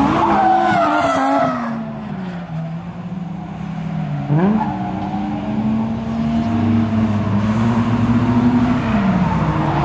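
Toyota AE86 driven hard on a circuit, drifting: the engine note falls off about two seconds in, jumps back up around four seconds in, and drops again near the end, with tyres squealing over the first second or so.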